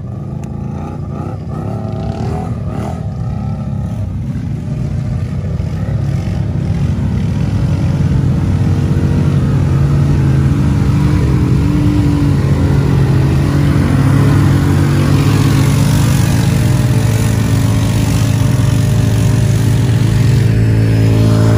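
Motor vehicle engine running hard and steady, growing louder over the first eight seconds or so and then holding at a loud, even pitch.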